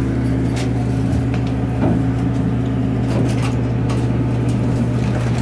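Hydraulic elevator car in motion: a steady low hum with scattered light clicks and rattles from the car.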